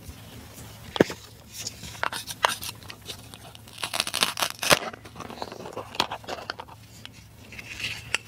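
Plastic toy strawberry being cut on a plastic toy cutting board: sharp plastic clicks and taps, the loudest about a second in, then a rasping tear around four seconds in as the toy knife parts the halves' hook-and-loop fastener.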